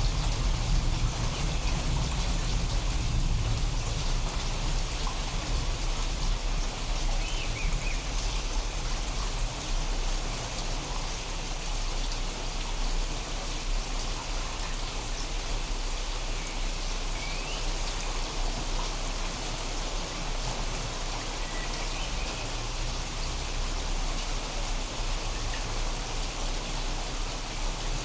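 Steady rain falling during a thunderstorm, with a deep low rumble of thunder that is strongest in the first several seconds and then eases off under the rain.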